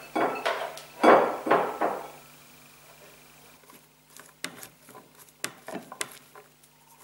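A spatula scraping and knocking against a blender jug as chopped vegetables are tipped out into a glass bowl, loudest in the first two seconds, then a few sharp taps near the end.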